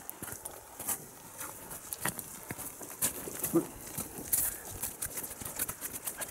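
Footsteps of hikers walking down a narrow dirt mountain path, an irregular patter of scuffs and clicks, with one short louder knock a little past halfway.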